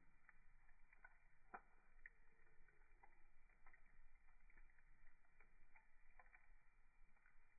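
Campfire crackling faintly, with small irregular pops and snaps of burning wood a few times a second.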